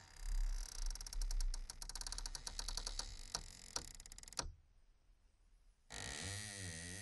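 Wooden door creaking on its hinge as it swings shut: a run of clicks that start sparse and speed up into a dense rattle, cutting off abruptly about four and a half seconds in. After a short near-silence, a wavering tone starts near the end.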